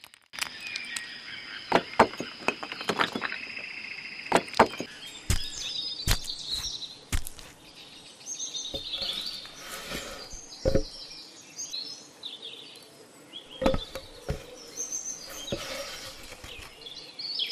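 Irregular knocks and clacks of stones being lifted from a pile of river rocks, then of cut branch logs knocking together as they are pulled from a woodpile and gathered up, with birds chirping throughout.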